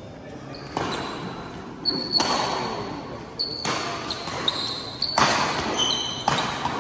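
Badminton rackets smacking the shuttlecock in a fast doubles rally, about seven sharp hits at uneven intervals, each echoing in a large hall, with short shoe squeaks on the court floor between them.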